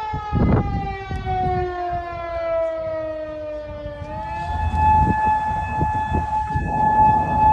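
Outdoor tsunami warning siren wailing: its tone slides slowly down, then rises again about four seconds in and holds steady. Low rumbling noise runs underneath.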